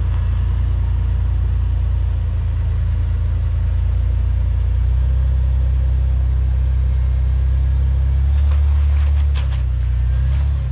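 Jeep Wrangler engine running at low revs as the Jeep crawls slowly up a large boulder: a steady low rumble whose pitch shifts slightly a few times, with a few short clicks or scrapes near the end.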